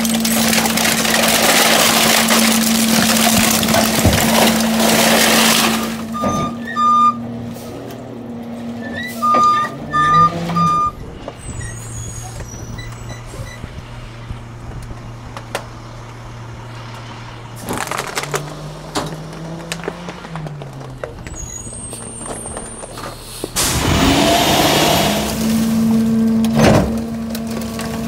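Garbage truck's hydraulic compactor packing a load: loud grinding noise over a steady whine, then a few short electronic beeps and the truck idling with a low hum, before the packer noise and whine start again near the end.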